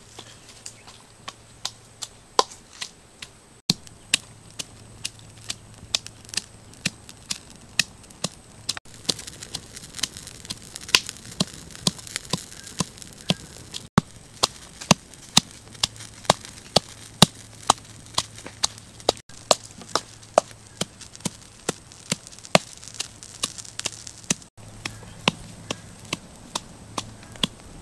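A pestle pounding red chillies and garlic in a mortar: steady sharp knocks, about two to three a second.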